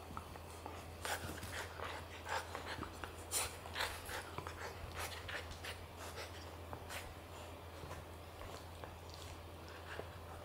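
A border collie and a golden retriever puppy mouthing and chewing a plush toy together, giving irregular short rustles and mouth noises that are busiest in the first half. A steady low hum runs underneath.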